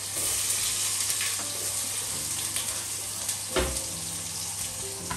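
Chopped onion, garlic and ginger sizzling steadily in hot oil in a steel pot, with a single sharp knock about three and a half seconds in.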